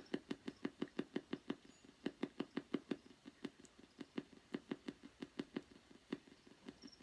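Spirit box radio scanning through stations, chopping out a steady train of short static blips, about five a second, with a couple of brief pauses.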